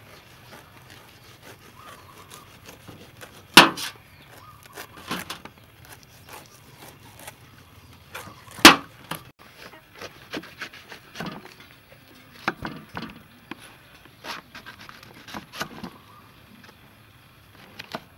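Kitchen knife peeling and slicing a soursop on a wooden board: irregular light scrapes and sharp knocks of the blade against the wood. Two knocks stand out as much louder, one a few seconds in and one about halfway through.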